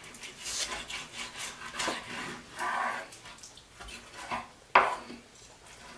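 Kitchen knife cutting through pork spare ribs on a wooden cutting board: repeated scraping and sawing against the meat and board, with a sharp knock about five seconds in.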